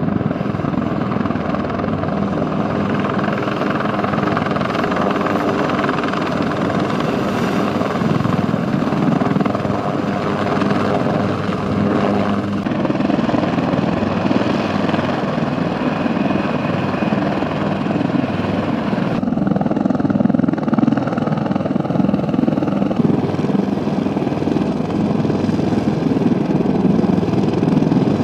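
Bell AH-1Z Viper attack helicopters running, a steady mix of rotor beat and twin-turboshaft engine noise. The sound changes abruptly a few times, about 12, 19 and 23 seconds in.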